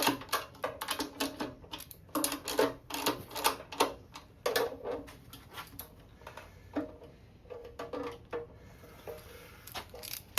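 Socket ratchet clicking in short quick runs, several runs in the first half and fewer later, as oil pan bolts are snugged down.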